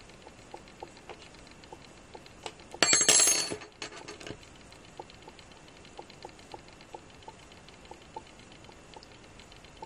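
Faint, irregular small ticks of a crochet hook catching and pulling cotton yarn through stitches. About three seconds in there is a brief louder burst of noise.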